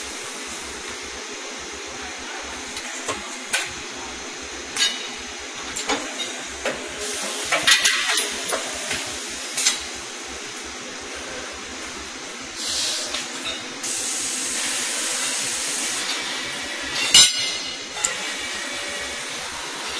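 Han Jie HC-380LR CNC tube bending machine working with its loading robot: a run of sharp metal clicks and clacks in the first half, one more near the end, over steady shop-floor noise. About two-thirds through, a hiss lasts a few seconds.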